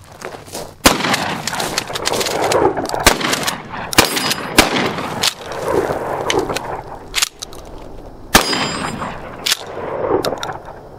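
A 12-gauge pump-action shotgun, a cut-down New Haven 600 AT (Mossberg 500 type), fired twice, about a second in and about eight seconds in, with sharp metallic clacks of the pump being worked between the shots. The shooter suspects the ejector is not throwing out the spent shells properly.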